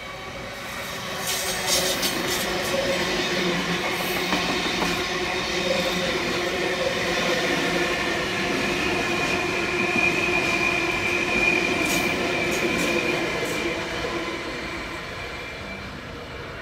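NSW TrainLink V-set double-deck intercity electric train passing through the station: a steady rumble of wheels on rail with sharp clicks over rail joints, loudest from about a second and a half in. A high, steady wheel squeal sings through the second half, and the sound fades near the end as the train moves away.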